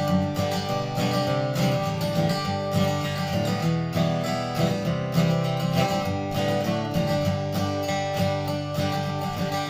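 Seagull SWS mahogany acoustic guitar strung with Martin Retro Monel strings, strummed chords ringing steadily.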